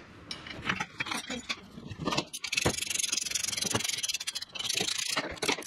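Small steel bolts clicking and clinking in the fingers, then from about two seconds in a hand ratchet clicking rapidly for a few seconds as the foot peg bracket bolts are run in.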